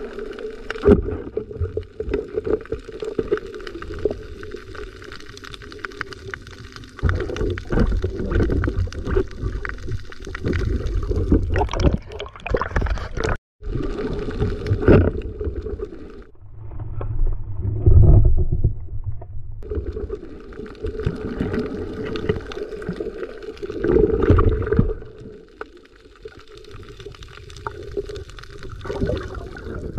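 Water sloshing and gurgling around a spearfisher's camera, muffled, swelling and fading every few seconds as he swims and dives. The sound cuts out briefly about halfway.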